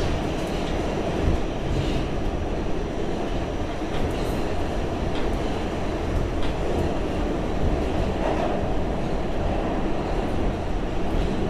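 Interior running noise of a Pullman-Standard R46 subway car underway in a tunnel: a steady rumble of wheels and running gear, with a few faint, irregular clicks from the wheels on the track.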